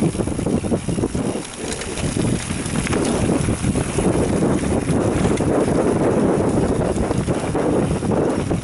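Wind buffeting the microphone of a camera riding a mountain bike down dirt singletrack, mixed with the rumble and rattle of the bike and tyres over the bumpy trail.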